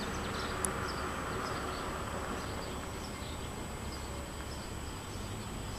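Quiet outdoor ambience: steady background noise with a low rumble and faint insect sounds, and one small click about half a second in.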